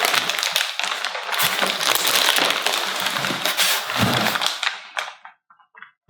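Heavy plastic shipping bag crinkling and rustling with rapid crackles as a boxed unit is lifted out of it, with a dull low bump about four seconds in; the noise stops about five seconds in.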